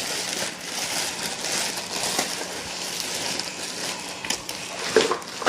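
Packaging rustling and crinkling as a dog stroller is worked out of its shipping box, with a couple of sharp knocks near the end.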